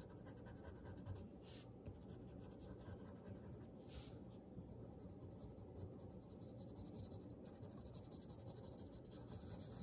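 Yellow wooden graphite pencil scratching faintly on paper in quick short strokes, sketching tall grass.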